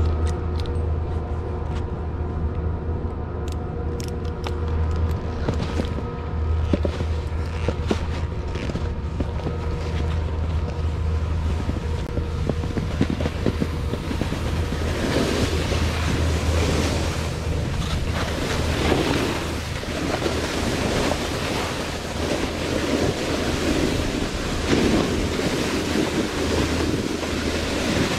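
Wind buffeting a snowboarder's camera microphone, with a steady low rumble. From about halfway, the hiss of the snowboard sliding over snow swells and fades every few seconds through the turns.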